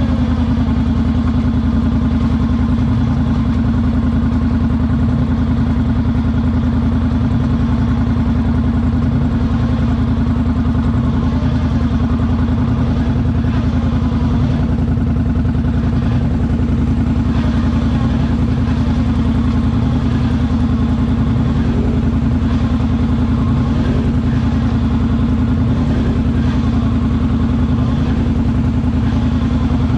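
ATV engine running steadily at low revs as the quad creeps through muddy water.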